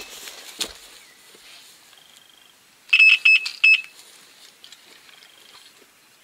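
Electronic carp bite alarm sounding a take: high, single-pitched beeps in quick runs, with four beeps close together about three seconds in. A single knock sounds about half a second in.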